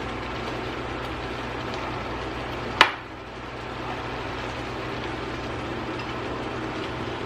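Rice being added to a pan of casserole sauce cooking on the stove, over a steady kitchen hiss, with one sharp clink of a utensil against the pan about three seconds in.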